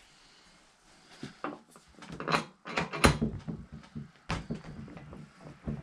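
Knocks and clatter of mini bike parts being handled and fitted, a handful of sharp hits with the loudest about three seconds in.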